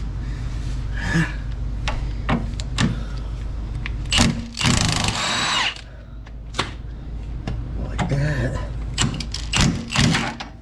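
Tool work on a car's traction bar rods: scattered metal knocks and clinks of tools and parts. About halfway through, a power tool, likely a cordless drill or impact, runs in a short burst of just over a second.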